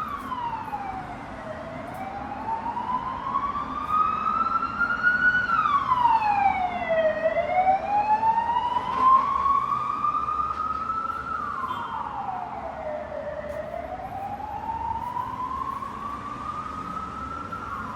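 Emergency vehicle siren wailing: its pitch climbs slowly, then drops quickly, over and over, about every six seconds.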